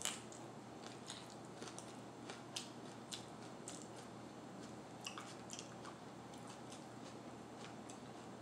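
A crisp bite into a raw red mini sweet pepper stuffed with cream cheese, then chewing with scattered crunchy crackles every half second or so.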